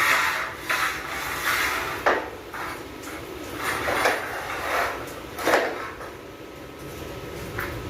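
Irregular scraping and sliding strokes of steel parts, about six in eight seconds, each a short rasping rub.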